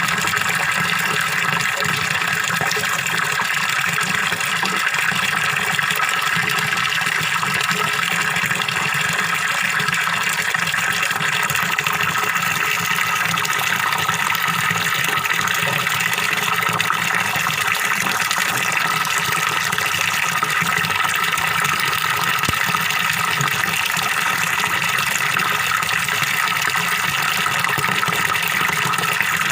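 Waterfall pouring steadily into a fish pond: a continuous, even gurgling rush of water.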